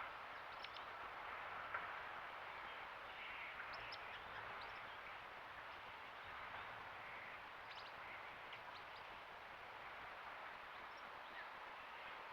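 Steady background hiss with scattered faint, short, high-pitched bird chirps.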